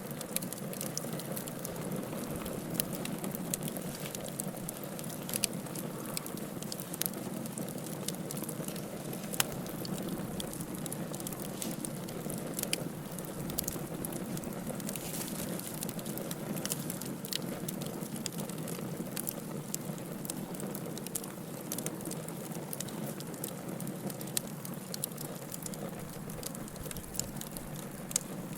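Wood fire in a fireplace crackling: a steady low rush from the burning logs with frequent sharp pops and snaps scattered irregularly throughout.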